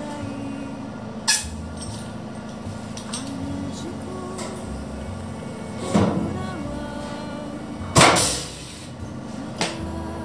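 Air-powered blind rivet gun setting a rivet in an aluminium body panel: a sharp snap about six seconds in, then about two seconds later a louder burst that trails off over half a second. Faint background music underneath.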